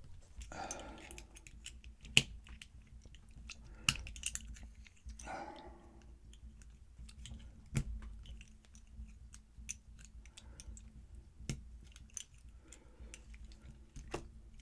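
Small metal parts and tools clicking and scraping as a pin tumbler lock is taken apart: several sharp separate clicks a second or more apart, with two short scraping rustles.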